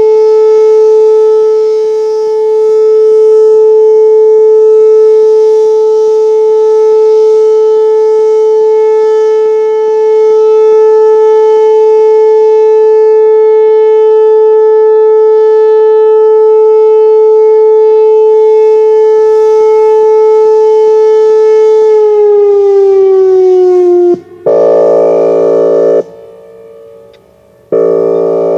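Whelen Vortex R4 outdoor warning siren sounding its Alert signal, one loud steady tone, then winding down in pitch about 22 seconds in. Near the end come two short, harsh blasts of its Air Horn signal.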